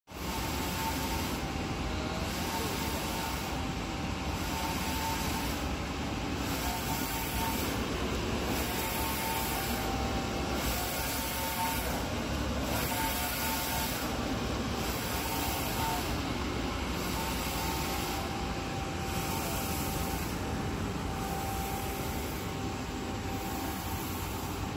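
JHF P2200e wide-format digital printer running: a steady mechanical hum as the print-head carriage sweeps back and forth, the sound rising and falling about every two seconds, with a faint whine that comes and goes.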